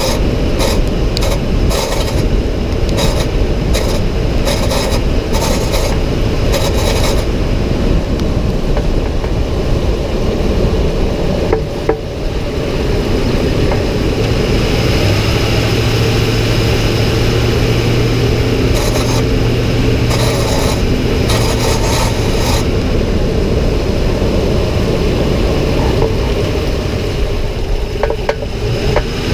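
2006 Ford F-150 running on the move: continuous engine and road noise, with a steady low drone that holds for about seven seconds in the middle.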